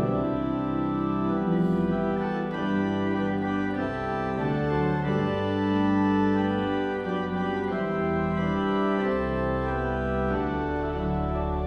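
Church pipe organ playing slow, sustained chords that change about once a second, with a low bass line beneath.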